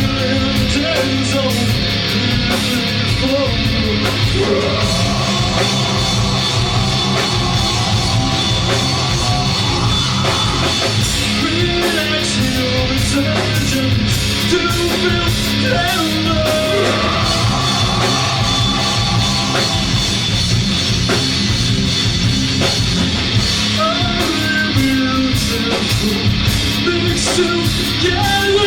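Rock band playing live: guitar, bass and drum kit at a steady loud level, with a singer's voice coming in and out over the band.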